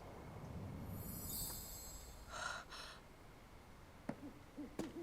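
Owl hooting in a run of short low calls near the end, after a low rumble with a high shimmering chime-like effect and two short soft bursts earlier on.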